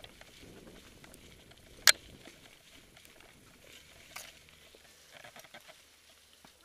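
Mountain bike rolling over dry leaves and rocky trail, a low crunching hiss with scattered small clicks and rattles, and one sharp knock about two seconds in.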